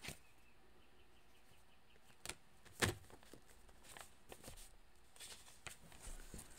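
Tarot cards being handled as a card is drawn from the deck: a few short card snaps and taps, the loudest about three seconds in, over quiet room tone.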